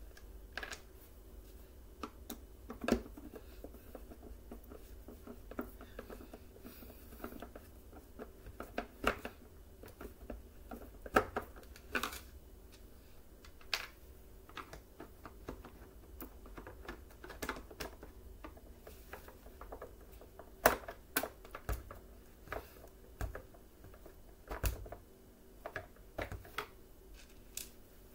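Irregular clicks and knocks of the plastic housing and small parts of a Bissell PowerForce Bagless upright vacuum being handled and fitted together, some of them sharp taps. A screwdriver is being handled among the parts.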